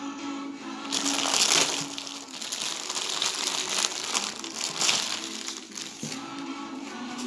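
Thin clear plastic bag crinkling and rustling as hands pull it open and slide a cotton bucket hat out. It is loudest from about one to two seconds in, flares again near five seconds and dies away about six seconds in, with background music underneath.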